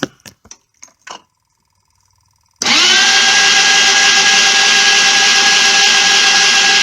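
A few light clicks, then the electric starter of a Jonway YY250T 250cc single-cylinder four-stroke scooter cranks the engine for a spark test. The starter spins up quickly to a steady, even whine and the engine does not fire, as fits this no-start scooter.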